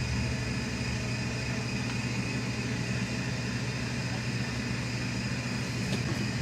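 Steady low mechanical hum with a few faint, steady higher tones above it.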